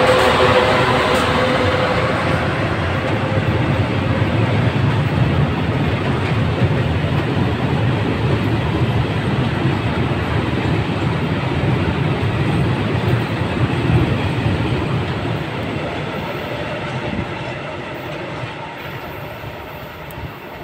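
Slovak class 131 twin electric locomotive passing with a train of Eaos open coal wagons: the locomotive's electric hum at first, then the wagons' steel wheels rolling steadily over the rails, fading over the last few seconds as the train moves away.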